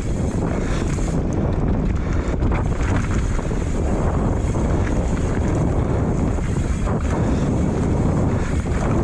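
Wind rushing over an action camera's microphone as a mountain bike descends a trail at speed, a steady low rumble of wind and tyres with a few faint clicks and rattles.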